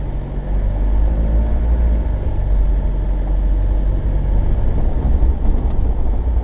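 Nissan Terrano 4x4 driving along a gravel track, heard from inside the cab: a steady low rumble of engine and tyre noise.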